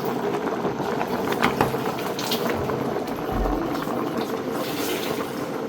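Food boiling in a cooking pot: a steady bubbling noise with scattered small crackles.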